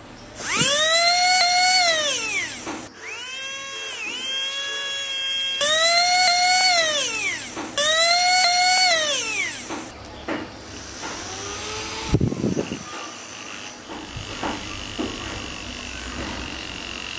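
Small brushed DC motor whining up to a high pitch and winding down again each time its leads are touched to and pulled off the terminals, four times in about ten seconds. It then runs more quietly and steadily with a plastic fan propeller on its shaft, with a few knocks from handling.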